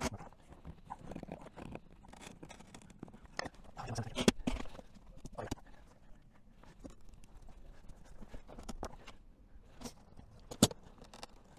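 Scraping and scattered knocks of plastic glazing paddles working a tight-fitting glass unit into an aluminium window frame, with two sharp knocks, one about four seconds in and one near the end.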